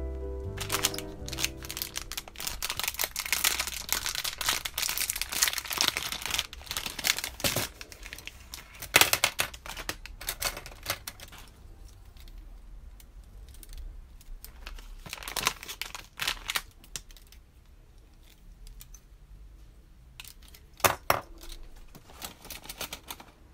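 Pens and markers handled in and out of a fabric pencil case: a long stretch of rustling and clattering, then a few shorter clatters later on, one sharp one near the end. Background music is heard briefly at the start.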